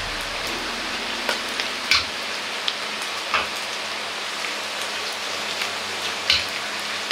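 Noodles deep-frying in a wok of hot oil: a steady sizzle and crackle, with a few sharper pops scattered through it.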